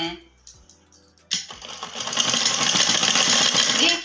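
Sewing machine running steadily as it stitches, starting about a second and a half in after a few faint clicks.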